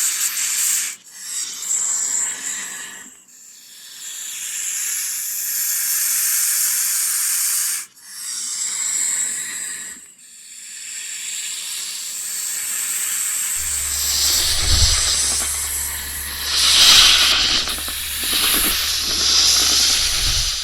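Snake hissing: a run of long, airy hisses with short breaks between them. In the last third the hisses grow fuller and louder over a low steady hum.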